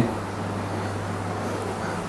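Background room noise with a steady low hum in a pause between words.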